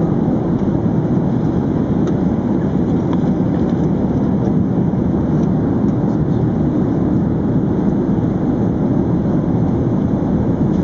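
Steady, even rumble of an Airbus A380 cabin in flight: airflow and engine noise, mostly low and unchanging.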